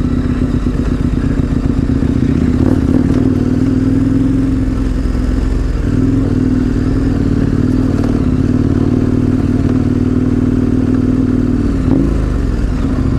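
Large adventure motorcycle engine running steadily at low speed on a dirt road, its note dipping briefly about six seconds in and again near the end as the throttle eases.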